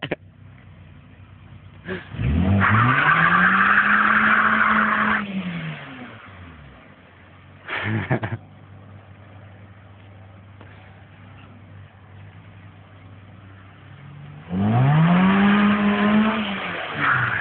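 Peugeot 309 engine revved hard twice: the pitch climbs and falls away about two seconds in, with tyres squealing, and climbs again near the end as the car comes back. In between the engine is faint and distant, with a short loud burst of noise about eight seconds in.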